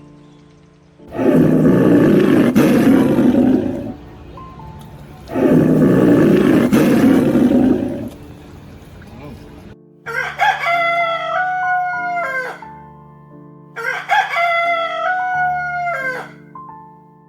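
A rooster crows twice, two long cock-a-doodle-doos about four seconds apart in the second half, over background music. Before them come two loud, rough, drawn-out calls from a larger animal.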